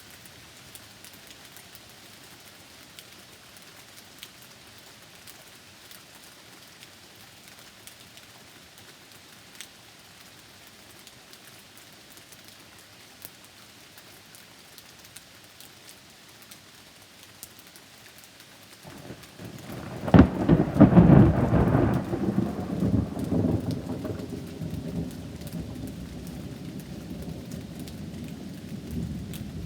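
Rain falling steadily with scattered drips, then about two-thirds of the way in a thunderclap breaks with a sharp crack and rolls into a long rumble that slowly dies away.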